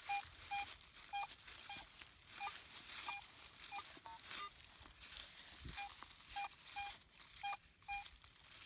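Garrett AT Pro metal detector giving repeated short beeps, about a dozen and mostly in pairs half a second apart, each time the coil sweeps back and forth over a buried target. Faint crackle of dry grass and leaves brushed by the coil runs underneath.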